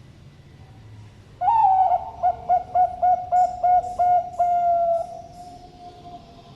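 Bangkok-type perkutut (zebra dove) singing one thick-voiced song phrase: an opening coo, a quick run of about eight short clipped notes, then a long held final note that fades.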